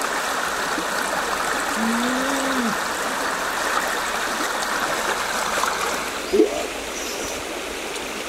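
A steady rushing noise, as of running water, that eases off about six seconds in. A brief voice-like hum comes about two seconds in, and a short, sharper rising sound comes just after six seconds.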